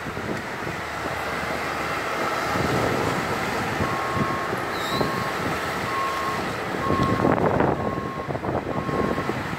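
A vehicle's reversing alarm beeping at a steady pitch, about one beep a second, starting a few seconds in, over a steady rumble of engine and road noise.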